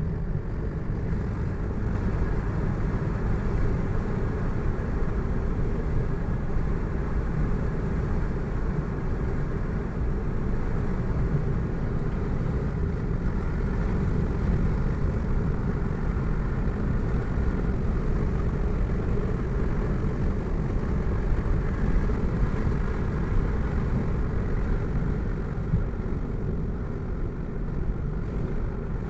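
Steady low rumble of a car driving along a road: engine and tyre noise that holds even throughout.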